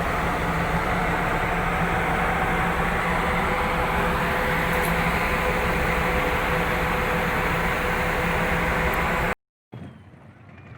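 A fishing boat's engine running steadily, a loud, even drone with a constant hum. It cuts off suddenly near the end and gives way to a much quieter scene with a few short chirps.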